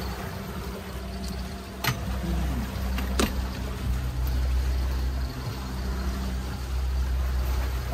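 Motorboat engine running steadily, with two sharp knocks about two and three seconds in.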